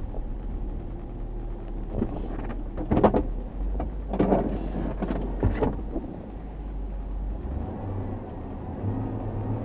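Chevrolet Tahoe running with a steady low hum, broken by a few short clunks between about two and six seconds in.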